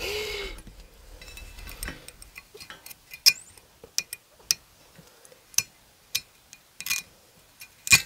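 Irregular light metallic clicks and clinks of a hand tool knocking against a steel ATV wheel rim while the old rubber valve stem is worked out of it, with one louder click at the end.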